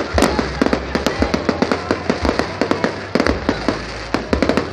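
Fireworks display: a rapid, irregular barrage of bangs and crackles from aerial shells bursting overhead, several reports a second.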